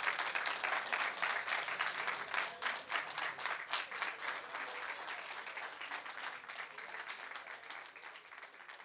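Crowd applauding, many hands clapping, which gradually dies away.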